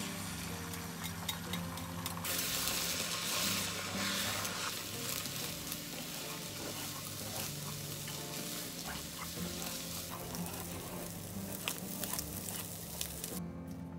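Food sizzling as it fries in a pan, with scattered light clicks of a utensil stirring it. The sizzle stops abruptly near the end.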